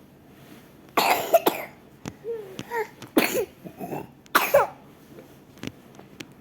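A young child coughing: three loud coughs, about a second and a half apart, with smaller coughs and short voiced catches between them.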